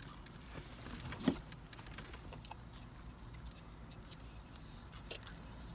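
Small clicks and scrapes of plastic forks against black plastic takeout containers of pasta, with one sharper click about a second in, over a low steady hum inside a car cabin.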